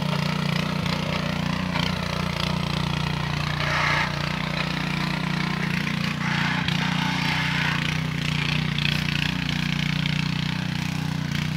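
Small engine of a tilling machine running steadily at an even speed while the soil is being turned.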